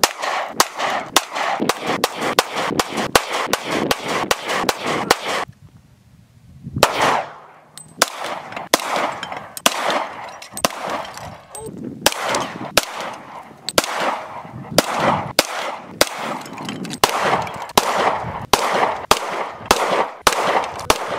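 Rapid semi-automatic gunfire, about two sharp shots a second, each followed by a short ringing echo. There is a pause of about a second and a half some five and a half seconds in. The later shots are from a SIG P229 pistol.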